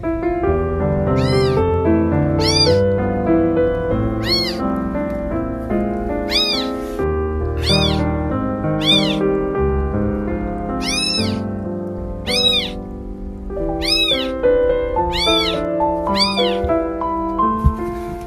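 Very young kittens mewing: about a dozen high-pitched calls that rise and fall, roughly one every second or so, the calls of kittens for their mother. Background music plays steadily underneath.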